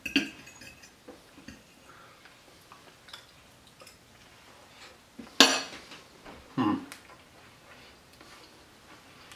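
Metal fork clinking on a white ceramic plate while taking a piece of casserole, with a few light ticks and scrapes. A loud sharp clink comes about five and a half seconds in, followed a second later by a duller knock.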